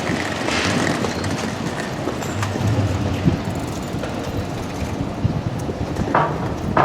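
Kintetsu Nagano Line train running on the tracks past a level crossing, a steady rolling rumble with a few short clicks from the wheels, and some wind on the microphone.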